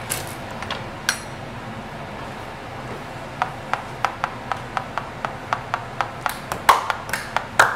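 Cutlery tapping on a plate: a couple of light clicks early on, then a quick, even run of sharp clicks, about three a second, from about three seconds in.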